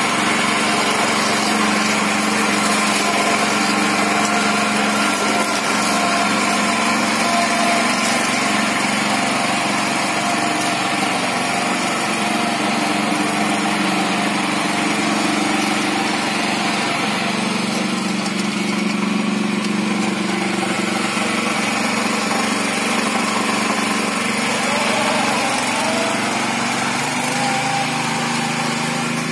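Hecht 7100 two-wheel tractor's single-cylinder four-stroke engine of about 200 cc, running steadily under load as it pulls a trailer of firewood, its pitch shifting a little twice and growing slightly fainter near the end as it moves away.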